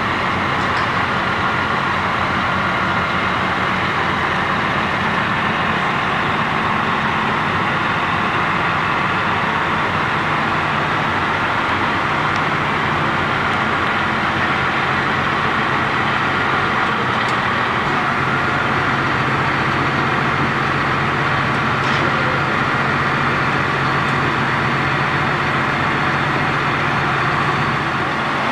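Heavy diesel engine of a Hitachi Zaxis 350 crawler excavator running steadily, its low note shifting slightly about twelve seconds in.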